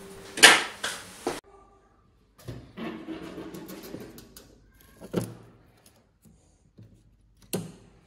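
Hands working at a household fuse box: rustling as a paper tape strip is handled on the circuit breakers, with a few sharp knocks near the start and two single sharp clicks later.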